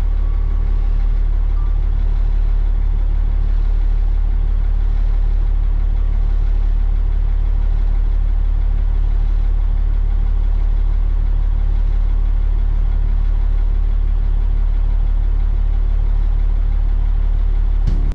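Snowplow truck's engine idling steadily, heard from inside the cab as a loud, even low hum.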